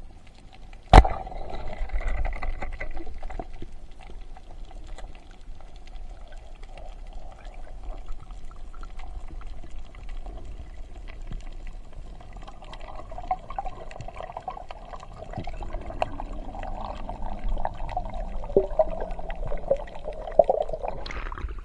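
Underwater sound of a spear shot at a rabbitfish: one sharp snap about a second in, then steady muffled bubbling and water movement.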